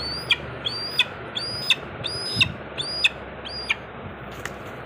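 Young eagle chick calling: six sharp, high-pitched calls, evenly spaced about one and a half a second, stopping about a second before the end.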